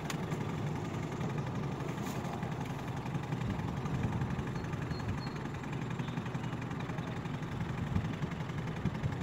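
A small fishing boat's motor running steadily at low speed, a low even hum.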